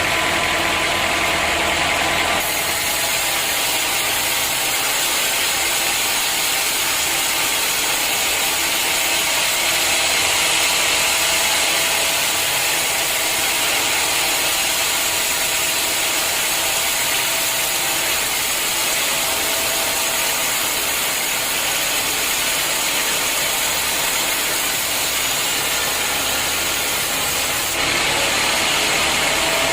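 Sawmill saw running through a log, a loud steady high hiss of the blade in the wood, with abrupt changes about two seconds in and near the end.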